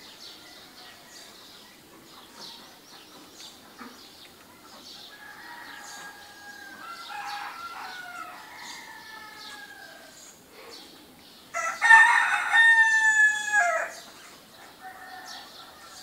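Morning bird ambience: small birds chirping faintly throughout, with a rooster crowing loudly for about two seconds near the end. A quieter drawn-out call with gliding tones comes a few seconds before the crow.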